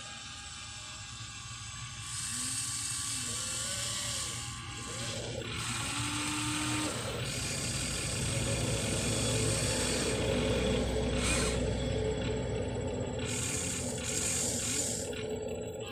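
Electric motors and gearboxes of a Huina 1593 RC excavator whining and grinding as it works, the pitch rising and falling as the motors speed up and slow down. It gets louder about two seconds in and again from about eight seconds in.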